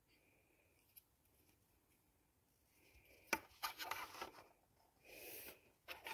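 Plastic LEGO minifigure handled and set down on a hard tabletop: a sharp click, then a quick run of small clicks and scrapes, a brief rustle, and one more click near the end.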